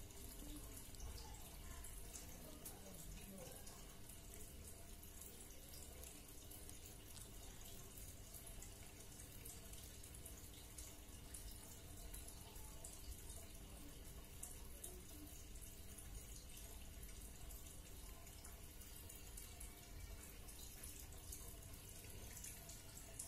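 Near silence: faint steady room noise, a soft hiss with a low hum.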